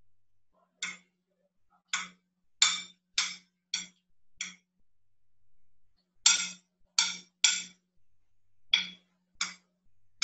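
About a dozen sharp taps and clicks on a ceramic plate as food pieces and a spoon are set down while a dish is plated, coming in irregular runs with a short pause about five seconds in.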